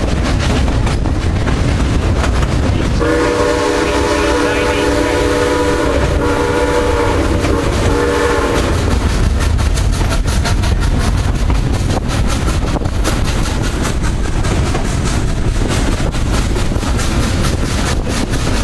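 Steam locomotive whistle of Southern Pacific #2472 blowing two long blasts back to back, starting about three seconds in, over the steady rumble and clickety-clack of the passenger cars rolling on the rails, heard from an open-air car.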